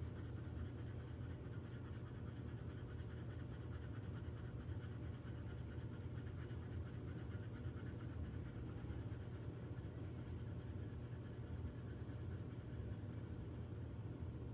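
Pencil scratching on paper in quick back-and-forth strokes as a drawing is coloured in, over a steady low hum.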